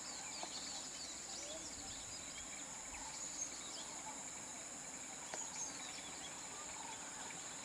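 Tropical forest ambience: a steady high insect drone with scattered bird chirps and a few faint clicks.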